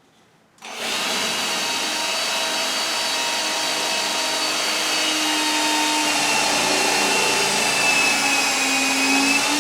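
Electric drill running steadily as it bores into a wooden board. It starts about a second in, and its pitch drops slightly late on.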